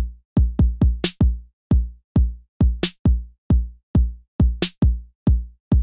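Grime/hip-hop drum-machine beat on its own: deep kick drums that slide down in pitch, in a syncopated pattern, with a sharp snare-like hit about every two seconds.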